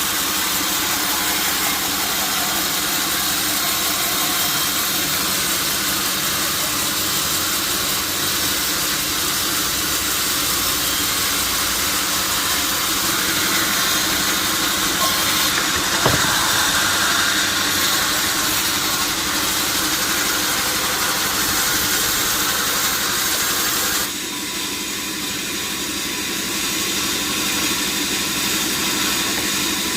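Sawmill log saw machinery running steadily, a constant hum under a strong hiss. A single sharp knock sounds about halfway through, and the sound drops and changes character about three-quarters of the way in.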